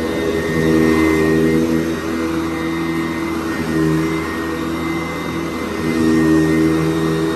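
Sanitaire SC889B commercial upright vacuum running on carpet: a steady motor hum with a high whine, swelling and easing every couple of seconds.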